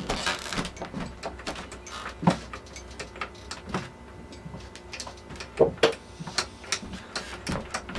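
Irregular metallic clicks and knocks as the parts of a T96 transmission's overdrive shift mechanism are worked by hand, trying to pull a part in. There are sharper clunks about two seconds in and twice near six seconds.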